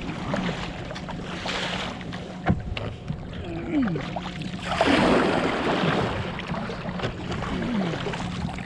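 Kayak paddle strokes in the water and water rushing and lapping along an inflatable kayak's hull, with wind on the microphone; the rushing grows louder about five seconds in. A couple of short falling squeaks and a few light knocks come through.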